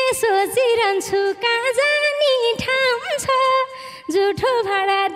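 A woman singing a Nepali dohori folk line into a microphone, her voice gliding through ornamented turns in short phrases with brief breaks between them.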